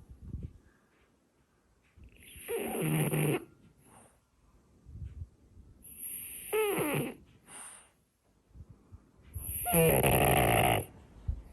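French bulldog snoring loudly in its sleep: three loud snores a few seconds apart, each about a second long, with softer breaths between them. The middle snore carries a falling whistle.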